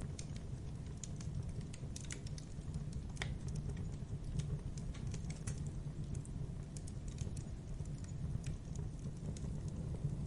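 Fire crackling: scattered, irregular small pops and clicks over a steady low rumble.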